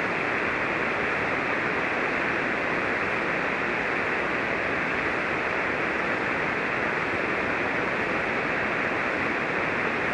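Steady static hiss from a ham radio receiver on the 40-metre band, single sideband, with no station transmitting. The hiss is even throughout and dull-sounding, with nothing above the voice range.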